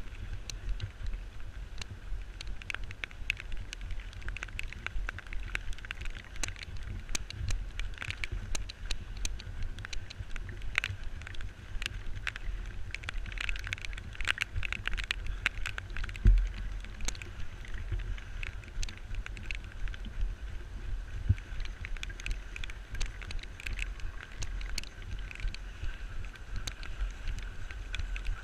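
Running footsteps on a dirt trail, a quick run of short knocks and scuffs, over a steady low rumble of wind and handling noise on a handheld action camera's microphone. One louder thump a little over halfway through.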